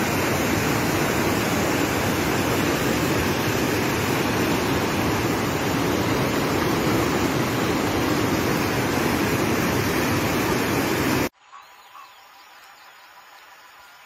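Muddy floodwater pouring over rocks in a swollen river: a loud, steady rush that cuts off suddenly about eleven seconds in. After it comes a faint, steady rush from a wide flooded river.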